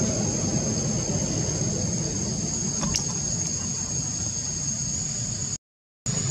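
Steady low background rumble with a constant high-pitched whine over it, a faint tick partway through, and a brief drop to silence near the end.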